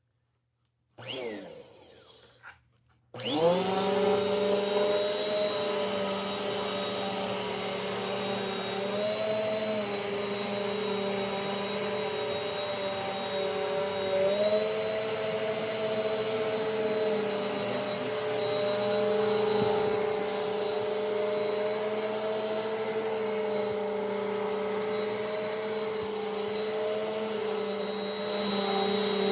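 Eureka AirSpeed NEU100 upright vacuum cleaner switched on about three seconds in, after a brief quieter noise. The motor comes up to speed at once and runs steadily with a high whine, its pitch shifting slightly now and then.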